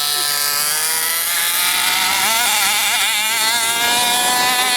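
HPI Baja 5B 1/5-scale RC buggy's small two-stroke petrol engine running at high revs, its pitch climbing slowly with a wavering stretch about two to three seconds in as the throttle is worked.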